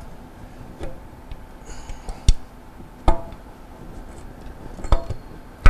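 Handling knocks from a condensate pump's electric motor being set on its side and shifted on a table: about five sharp clicks and knocks spread out, two of them with a brief metallic ring.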